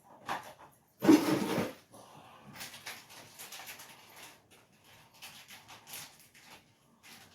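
Deadbolt lock parts and screws being handled, with small clicks and rustles, and one loud, short noise about a second in.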